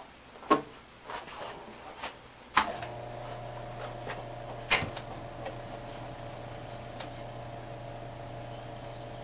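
Several sharp knocks and clicks of the Bedini–Milkovic oscillator rig being handled. About two and a half seconds in, a steady mechanical hum starts up and runs on, with one more knock a couple of seconds later.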